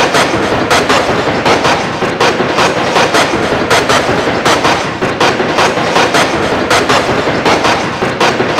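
Sample-chopped remix beat: short bursts of noise cut from a metro recording, repeated in a fast, even rhythm of about four a second.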